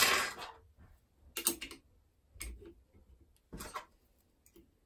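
Metal clicks and light scrapes from lock-picking tools and a lever mortice lock clamped in a vice: one sharp click at the start, then a few short clicks spaced about a second apart.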